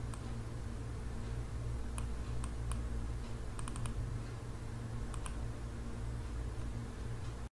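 Sharp clicks of a computer mouse and keyboard: a few single clicks and a quick run of four about three and a half seconds in, over a steady low electrical hum. The sound cuts off suddenly near the end.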